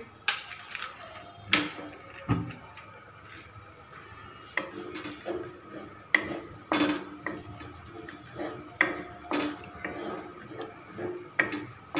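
Wooden spatula stirring a thick yogurt masala in a metal kadhai, with a run of sharp knocks and scraping strokes against the pan. The stirring is quieter for a second or two around the middle.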